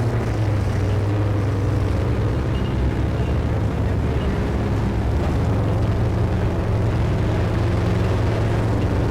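Engine of a modified 4x4 competition truck running steadily, its pitch barely changing.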